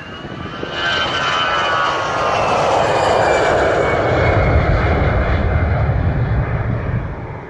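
Airbus A319 airliner making a very low pass at speed: a whine that rises and then drops in pitch as it passes, under a jet roar that builds and turns into a deep rumble, strongest in the second half and easing near the end.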